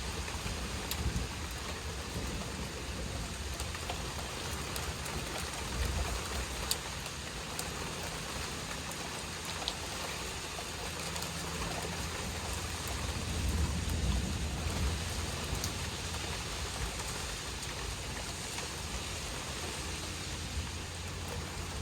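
Steady rain falling, with scattered drop ticks and a low rumble underneath.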